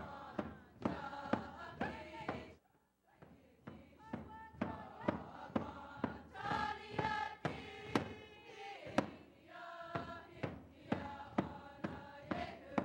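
Group of singers singing together in unison to a steady beat on a hand-held frame drum, about two beats a second. The song breaks off briefly a little under three seconds in, then resumes with the drum.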